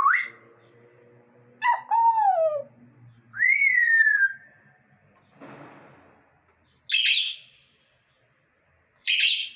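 Pet parrot calling: a rising whistle, then two falling whistled calls, the second long and drawn out. A faint rasp follows, then two short harsh squawks a couple of seconds apart.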